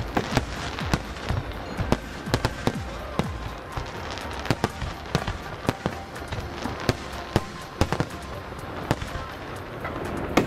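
Fireworks going off: many sharp bangs and crackles in quick, irregular succession.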